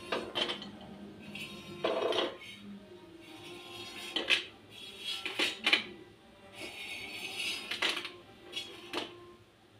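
A metal knife scraping and clattering on a metal pan, and the loosened white spiral pieces dropping into a stainless steel plate. About seven sharp clinks and scrapes come at uneven intervals, the loudest a little past the middle.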